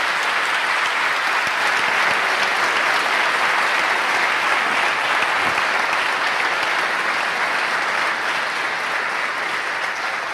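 A large audience applauding: dense, steady clapping that eases off slightly near the end.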